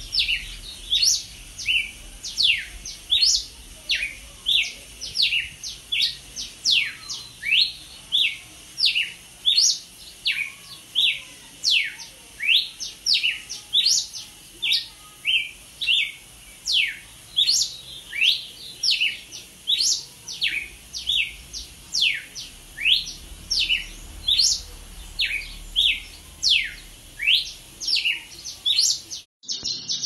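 Red-cowled cardinal (galo-de-campina) singing: a long run of clear whistled notes, each sliding steeply down in pitch, at about two notes a second.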